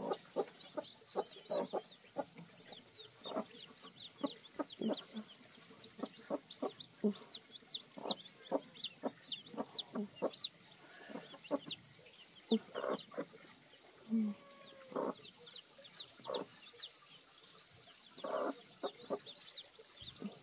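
A hen clucking among newly hatched chicks, which peep constantly: many quick high cheeps that fall in pitch, over short low clucks.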